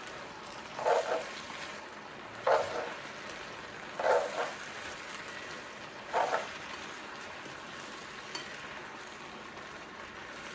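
Shrimp, cabbage and noodle stir-fry sizzling steadily in the pan as it is mixed, with four short louder stirring strokes in the first six seconds.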